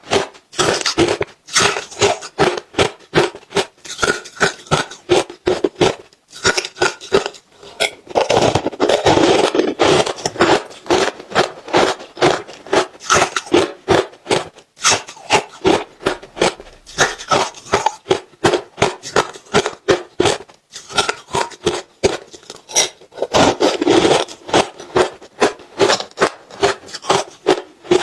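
Close-miked crunching of ice being chewed: rapid, sharp crunches several a second, broken by short pauses now and then.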